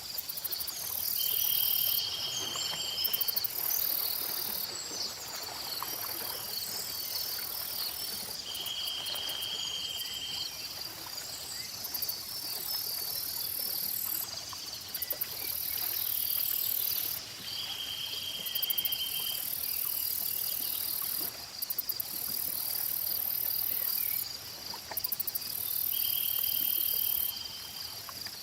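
Layered nature ambience of insects and birds: loud, high-pitched insect buzzing that switches on and off in stretches of a few seconds, over a steady chorus of small chirps. A short buzzy trill comes back about every eight seconds, four times.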